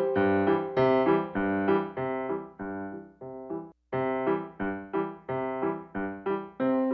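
Piano music: a steady run of single struck notes and chords, each fading after it is played, with a brief break near the middle.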